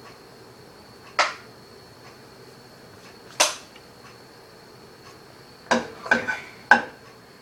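A utensil clinking and knocking against a frying pan while an egg cooks: two single clinks a couple of seconds apart, then a quick cluster of four near the end.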